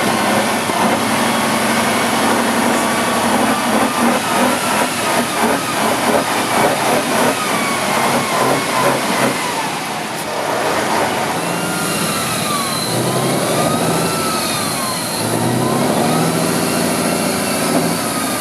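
Big off-road trial truck's diesel engine running hard, then revving up and down several times in the second half.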